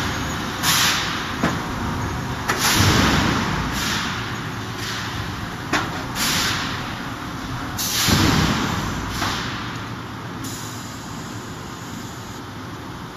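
Electro-hydraulic single-arm open-die forging hammer working a red-hot workpiece. A series of loud, irregular blows and bursts, each about half a second, the loudest around three and eight seconds in, with two sharp knocks between. After about ten seconds it settles into steady machinery noise.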